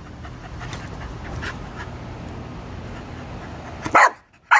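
A dog barking: two short, loud barks about half a second apart near the end, after a few seconds of steady low background noise.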